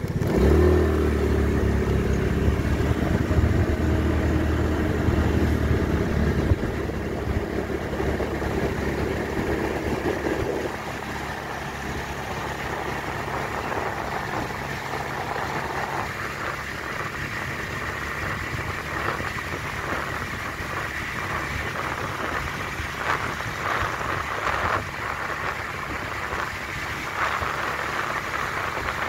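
A vehicle engine pulling away from a stop, its pitch rising over the first six seconds or so, then settling into steady cruising under an even rush of road and wind noise.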